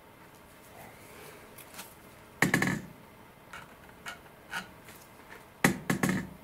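Sharp clacks and taps of small hard parts being handled as a servo and its tray are worked into a model glider's carbon tail boom. There is a loud cluster of clacks about two and a half seconds in, a few lighter taps, and another loud cluster near the end.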